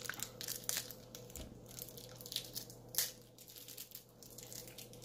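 Crinkling and tearing of the small wrapper of an MRE gum packet being opened by hand, in scattered crackles with a sharper snap about three seconds in.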